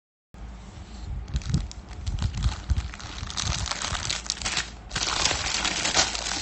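Crinkling and rustling handling noise with many sharp clicks and low knocks. It starts abruptly and cuts off suddenly near the end.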